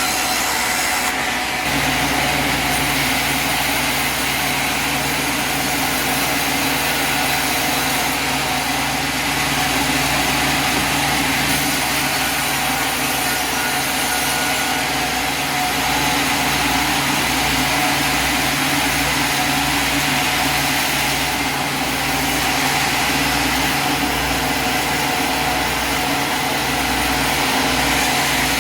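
Engine of a portable sawmill running steadily at constant speed, with a shift in its low hum a couple of seconds in.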